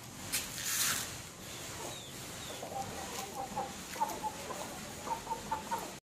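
Aseel chickens clucking: a run of short, repeated clucks in the second half, with a brief burst of noise about half a second in.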